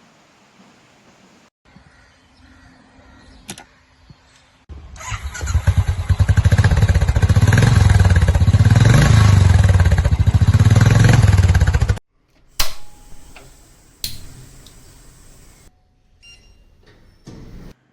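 An engine running with a rapid pulse, revving up and then back down, cut off abruptly after about seven seconds. After it come a few sharp clicks.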